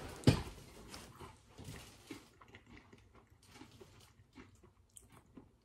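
Pumpkin Spice Oreo cookies being bitten and chewed: one sharp crunch near the start, then soft, crackly chewing that fades.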